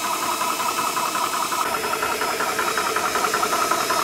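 Small portable electric high-pressure air compressor running with a rapid, even pulsing, refilling the air reservoir of a Seneca Double Shot PCP air rifle through its fill hose.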